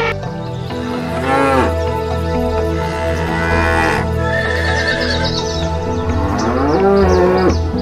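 Cattle mooing three times, each call rising and falling in pitch, over steady background music.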